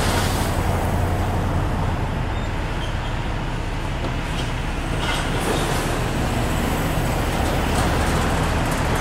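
Truck engine running close by: a steady low rumble under a broad rushing noise.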